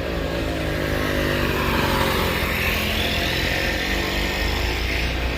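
Motor vehicle engine running steadily, with a deeper low rumble setting in about four seconds in.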